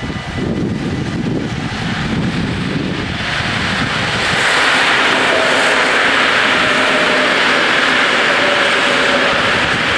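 NS Mat '64 electric multiple unit approaching and running over a level crossing: a low rumble builds over the first three seconds, then from about four seconds in a loud, steady rush of wheels on rail, with a faint hum under it that sinks slightly in pitch.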